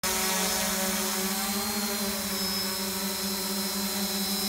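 Quadcopter drone's motors and propellers running in a hover: a steady pitched hum with a thin high whine above it, the pitch wavering slightly about two seconds in.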